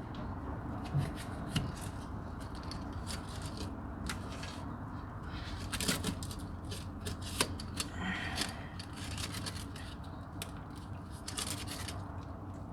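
Hand tools working on metal parts of a skid steer engine: irregular clicks, light knocks and short scrapes, with a louder cluster of clicks around six seconds in and again near the end.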